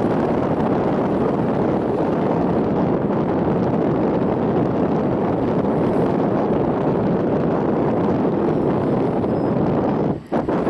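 Steady rushing noise of a Vivalto double-deck commuter train running at speed, heard from its upper deck, with wind on the microphone. The sound drops away for a moment near the end.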